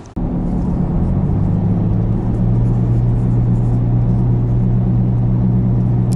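Vehicle driving at speed, heard from inside the cabin: a steady low engine and road drone.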